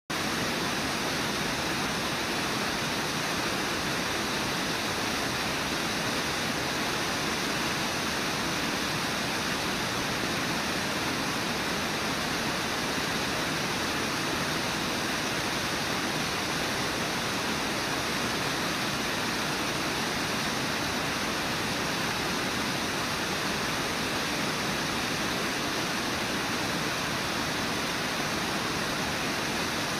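Steady, unbroken rush of water pouring over Brooks Falls, a wide, low river waterfall.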